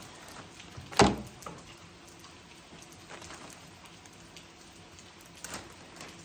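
Handling noises from skinning a hanging rabbit carcass: one sharp knock about a second in, then a few faint clicks and rustles.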